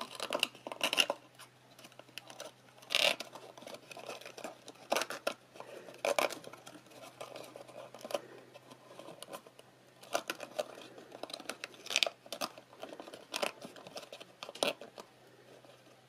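Cardstock box and thin metallic ribbon rustling and scraping under the hands as the ribbon is pulled to draw the box top closed: a dozen or so short, irregular rustles that stop about a second before the end.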